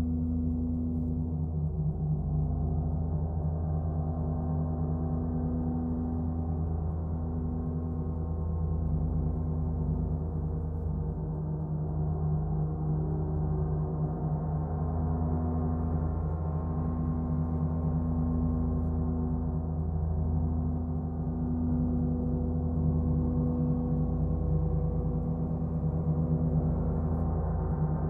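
Earth and Moon planet gongs sounding in one continuous, sustained wash: a deep hum of many steady, overlapping tones with no separate strikes standing out. One of the middle tones dips and swells again every few seconds.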